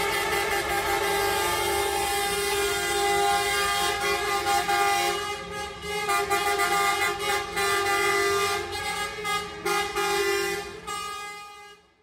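Horns of passing coaches honking in long, overlapping blasts, with short breaks in the second half, fading out near the end.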